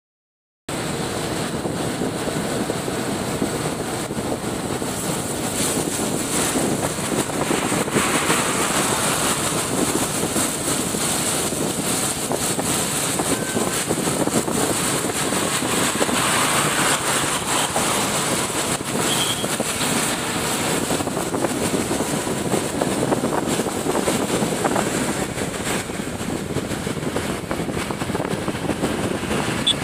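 Steady rush of wind on the microphone mixed with road noise from a motorcycle riding at speed along an open highway. It cuts in after a brief moment of silence at the start.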